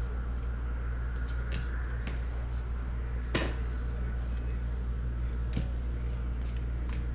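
Trading cards slid and flipped one behind another in the hands: faint scrapes and small clicks of card against card, the sharpest a little over three seconds in, over a steady low hum.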